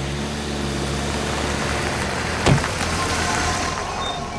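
A car engine starts and settles into a steady run. A car door shuts with a single thump about two and a half seconds in.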